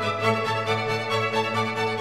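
Instrumental background music: held tones over a steady low note.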